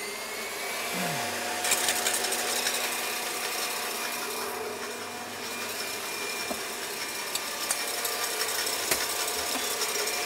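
KitchenAid Heavy Duty stand mixer running steadily, whipping egg whites in its steel bowl for an Italian meringue.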